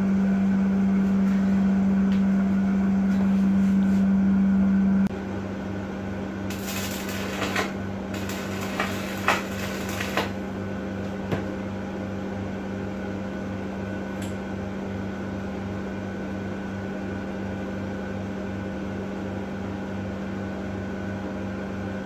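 Electric welding machine humming steadily, louder for the first five seconds, with two spells of welding-arc crackle and spatter between about six and ten seconds in.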